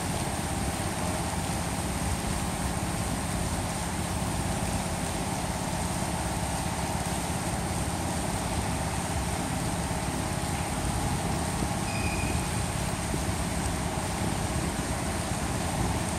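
Steady background noise, a constant low rumble with hiss, like distant road traffic, with no distinct events.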